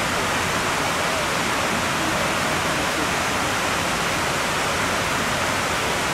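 Steady rush of water cascading down the walls of the 9/11 Memorial reflecting pool into its central void, an even waterfall sound.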